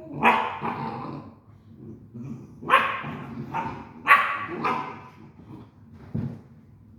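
Great Dane barking in a handful of separate loud barks over several seconds, with gaps between them.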